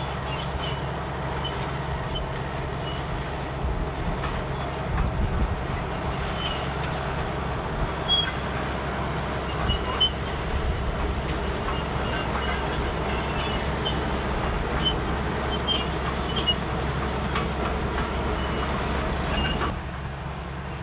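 Komatsu D65EX crawler bulldozer working: its diesel engine runs steadily under load, with scattered short high squeaks and clinks over it. The sound drops a little about a second before the end.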